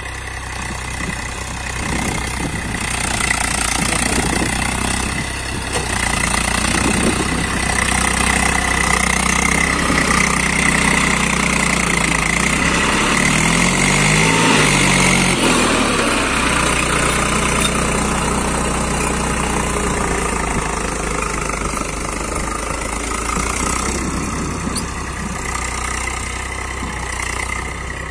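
Eicher 380 tractor's diesel engine running steadily under load as it pulls a cultivator through wet soil. Around the middle its pitch wavers up and down briefly.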